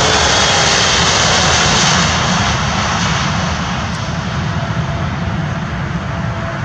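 Jet engines of a Boeing 777 freighter (GE90s) passing close on landing, a loud roar with a whine that falls in pitch. The noise eases off about two seconds in as the aircraft goes by and touches down.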